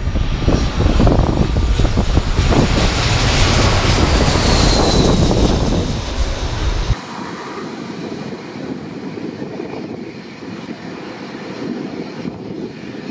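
Twin-engine jet airliner passing low overhead on final approach: loud jet engine noise with a deep rumble and a falling whine as it goes over. About seven seconds in it cuts abruptly to a much quieter, more distant engine sound as the airliner comes in to touch down.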